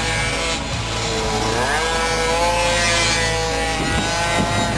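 Minibike's small engine revving hard through a corner: the pitch sags about a second and a half in, then climbs and holds high as the rider gets back on the throttle.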